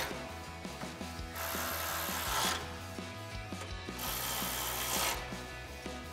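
Milwaukee cordless electric ratchet driving 4 mm Allen head bolts in two short runs, the first about a second and a half in and the second about four seconds in, each lasting about a second.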